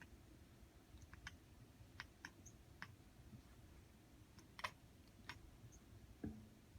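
Faint, irregular small clicks and ticks, about eight to ten scattered through the quiet, with a soft thump near the end.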